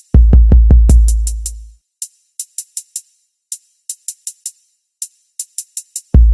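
Hip hop drum-machine beat: quick hi-hat ticks in rolls, with a long, deep bass note hitting just after the start and fading out over about a second and a half, then hitting again near the end.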